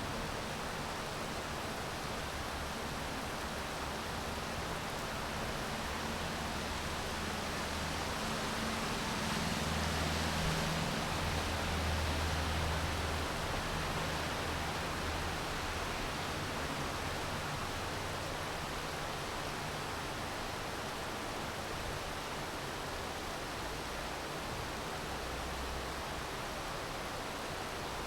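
Steady rain falling, an even hiss, with a low rumble that builds about a third of the way in and fades out about halfway through.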